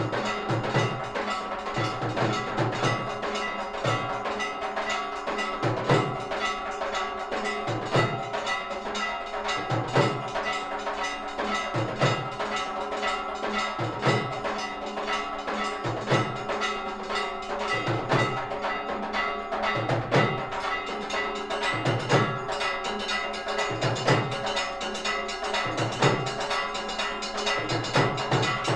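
Temple aarti percussion: bells ringing continuously with rapid metallic strikes, over a deep drum beat about every two seconds.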